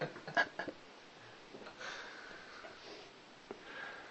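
Faint breaths and sniffs, a few soft puffs of air, after a brief bit of voice at the very start.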